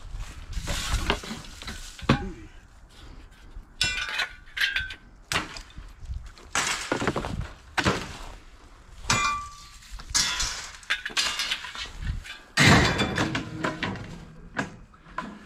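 Scrap metal being handled and tossed: a run of irregular clanks and clatters, a few of them ringing briefly.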